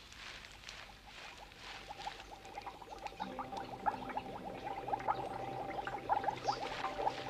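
Rustling footsteps through leafy undergrowth. From about three seconds in, water bubbling and gurgling in quick, irregular blips that grow louder.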